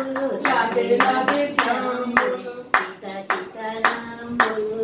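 Hand claps in a steady beat, about two a second, with a voice singing a simple sing-song tune along with them.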